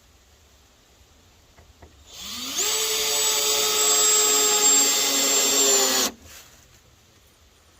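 Power drill driving a screw through a deck board into the joist: the motor spins up with a quick rising whine, runs steadily for about four seconds, then stops abruptly as the screw seats.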